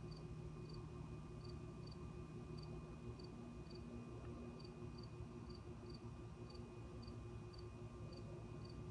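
A cricket chirping faintly in short, high chirps about twice a second, over a low steady hum.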